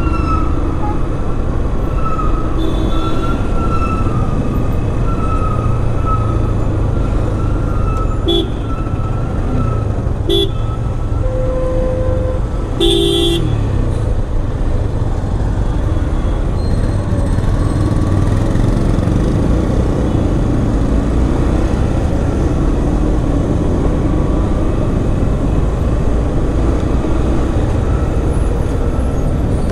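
Busy city road traffic heard from a moving motorcycle: steady engine and road noise. Vehicle horns toot several times in quick succession near the middle, with one longer steady honk and the loudest toot just after it.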